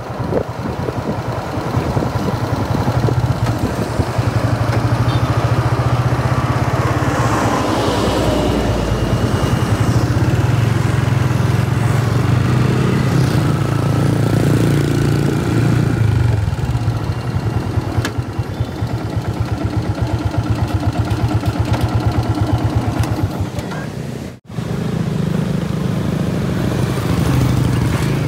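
Motorcycle engine running steadily as it is ridden along a road, heard from the rider's seat, its note shifting with speed. The sound drops out briefly about three-quarters of the way through, then an engine is heard running again.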